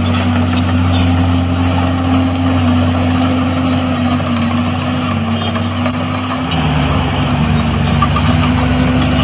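Heavy diesel engine of earthmoving machinery running steadily; about six and a half seconds in, its note shifts lower as the engine load changes.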